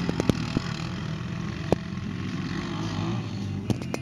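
4x4 ATV engine running as the quad spins on loose dirt, its pitch wavering up and down, with a few sharp clicks near the start and near the end.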